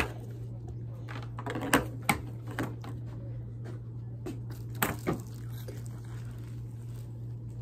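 Handling noise of hard plastic monitoring equipment: a few sharp clicks and knocks as the parts are handled and set down, over a steady low hum.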